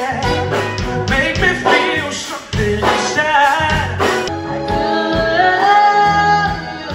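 Live band playing with a man singing over saxophone, electric guitar, keyboard and drums. About four seconds in, the music changes abruptly to another song, with long held sung notes.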